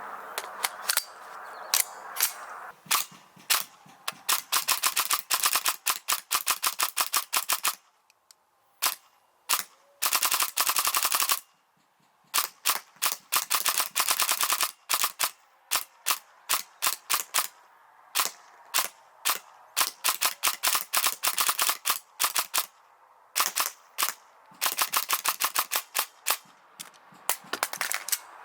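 Airsoft M4 electric rifle with a dual-sector gearbox (DSG) firing BBs. It fires single shots and very fast full-auto bursts, with short pauses between strings. One dense burst comes about ten seconds in.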